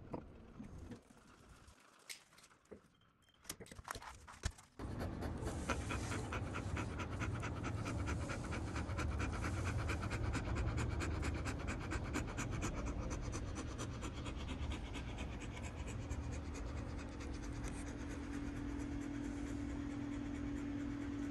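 English bull terrier panting fast and hard, close up, starting about five seconds in after a few faint clicks.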